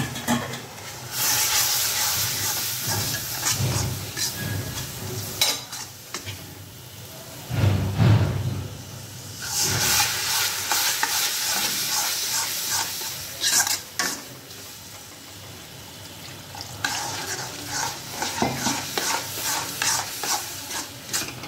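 A flat metal spatula scraping and stirring a thick, sizzling spice masala around an iron kadhai. The masala has had a splash of water added so it won't stick. The stirring comes in three spells, with quieter sizzling between them and a dull knock about eight seconds in.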